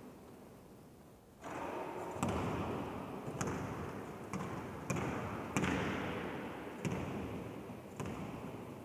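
A basketball bouncing on a sports-hall court about once a second, seven or so thuds starting about two seconds in, each ringing on in the echo of a large hall.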